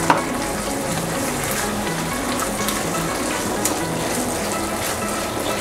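Chicken chili sauce sizzling and bubbling in a non-stick pan as it is stirred with a spatula, with scrapes and a sharp clink of the spatula on the pan right at the start. Soft background music plays underneath.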